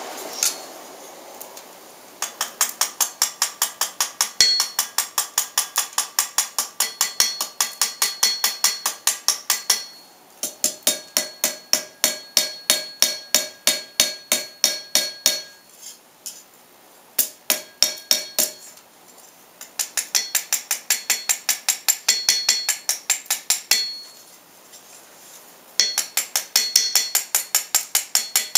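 Ball peen hammer striking a steel bar on an anvil, about four or five ringing blows a second in runs of several seconds with short pauses. The steel is being shaped at the tip of a hand-forged bottle opener, with the ball peen end making a concave tip.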